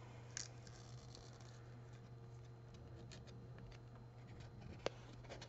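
Faint scratchy rustling and scattered small clicks of a Topps Rip baseball card being peeled and torn open by hand, with a sharper click about five seconds in, over a steady low hum.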